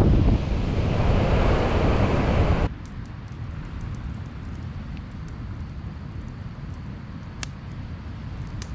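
Strong wind buffeting the microphone, cutting off suddenly about a third of the way in. Then a small wood campfire burning in a fire pit: a quiet low rumble with a few sharp crackles near the end.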